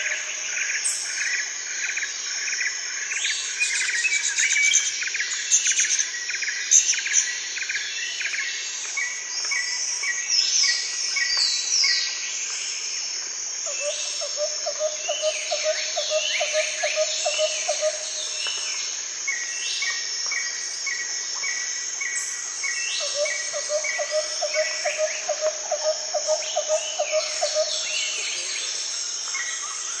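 Rainforest ambience: many birds calling with rapid chirps and falling whistles over a steady high buzz of insects. A lower pulsing trill comes in twice in the second half.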